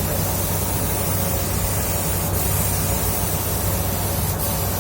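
Compressed-air paint spray gun spraying paint in a steady hiss, with a low hum underneath. The hiss dips briefly twice.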